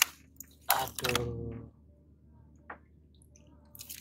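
Freshly caught yellowtail fusiliers flapping and slapping against a woven bamboo basket as they are handled. There are sharp rustling bursts about a second in and again near the end, with small clicks in the quiet between.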